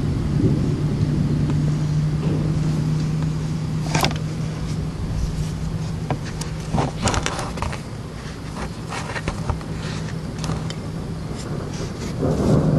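Thunderstorm at night: a steady low hum with scattered sharp ticks and clicks over it, and thunder rumbling again near the end.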